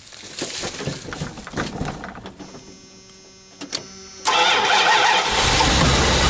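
Rustling steps in dry leaves, then the van's engine is cranked about four seconds in on a dead battery boosted by a lithium jump pack. It catches within about a second on a cold 30-degree morning and settles into a steady cold idle.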